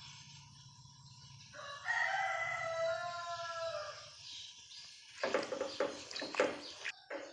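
A rooster crows once, a long call lasting about three seconds. Near the end, a plastic spatula stirs and knocks in a pot of vegetables in broth, making a run of short clattering scrapes.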